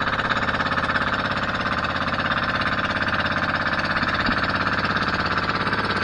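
Outrigger boat's inboard engine running steadily under way, a fast even chugging of about nine beats a second.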